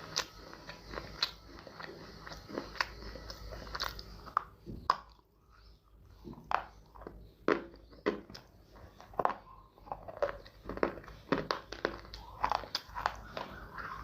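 Close-miked crunching of edible baked clay being bitten and chewed: sharp, irregular crunches about one or two a second, with a brief lull about five seconds in.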